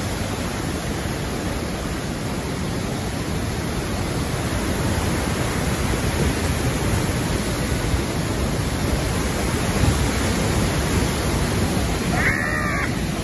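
Bridal Veil Falls pouring onto the rocks at close range: a loud, steady rush of falling water with no let-up. Near the end a short, high-pitched voice cuts in briefly.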